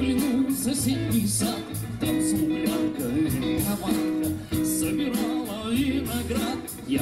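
Live band music with a man singing a melody into a microphone, played through the stage speakers.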